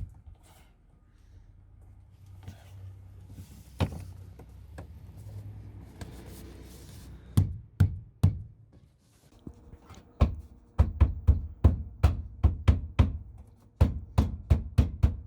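Flooring planks being knocked together at the seams: a few scattered knocks about halfway in, then a steady run of sharp blows, about three a second, to close the joints.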